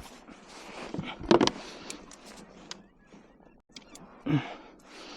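Irregular clicks, knocks and rattles of a big redfish being unhooked on a kayak: hands, pliers, net and hull, with the loudest knock about a second in.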